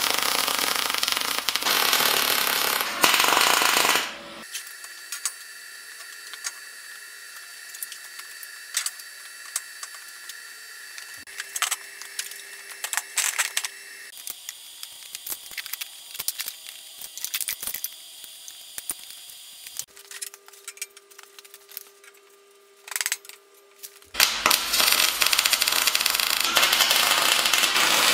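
MIG welder arc crackling on steel square tubing for about four seconds, stopping abruptly, and starting again near the end. In between is a much quieter stretch with scattered light clicks and taps and faint steady tones.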